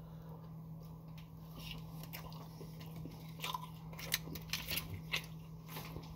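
Close-up mouth sounds of someone chewing a bite of a McDonald's Quarter Pounder: scattered wet clicks and smacks, more of them in the second half. A steady low hum runs underneath.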